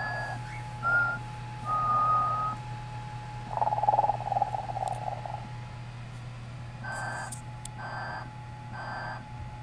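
Telco animated snoring Santa toy from the early 1990s playing its electronic snoring sound. It makes short whistling puffs, a long rattling snore in the middle, then three wheezy breaths about a second apart, over a steady high tone and a low hum.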